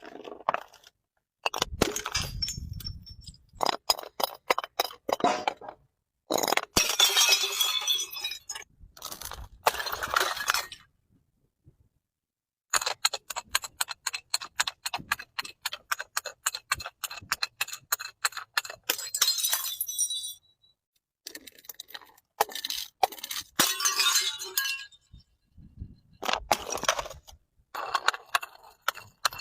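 Glass bottles breaking and being crushed: dense runs of sharp cracking, crunching and clinking of glass shards, in several separate stretches of a few seconds each with brief silences between them.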